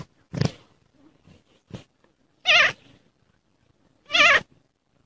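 Domestic cat giving two loud, wavering, bleat-like meows about a second and a half apart.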